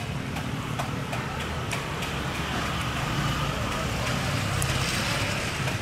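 A steady low motor rumble, with a few light clicks scattered through the first half.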